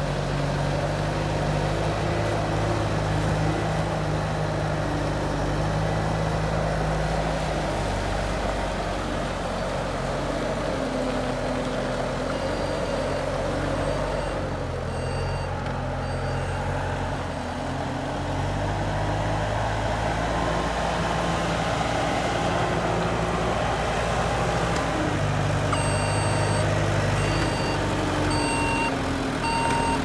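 Bobcat A300 skid steer loader's diesel engine running as the machine drives and manoeuvres, its engine note rising and falling with throttle. A backup alarm beeps in two stretches, about a third of the way in and again near the end.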